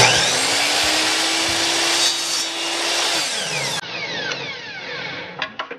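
Electric compound miter saw switched on with a sudden start, its motor whining up to speed and running loud for about three seconds while it cuts a short plug off a wooden plunger handle. The trigger is then released and the blade winds down with a falling whine.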